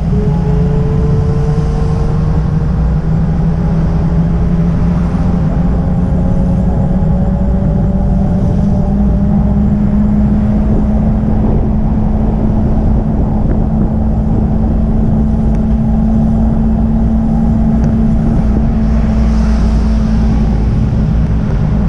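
Steady wind and road rumble on a camera riding along a street, with a motor whine that climbs slowly in pitch as it speeds up. Near the end a van passes close by with a brief rush of noise.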